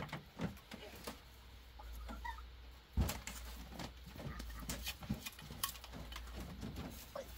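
Bamboo strips being split and worked by hand, giving scattered clicks and scrapes, with one sharp knock about three seconds in.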